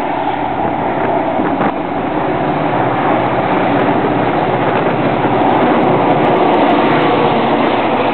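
Diesel-hauled freight train passing at speed. The locomotives' engines grow louder as they approach and go by, then open gondola cars roll past on the rails.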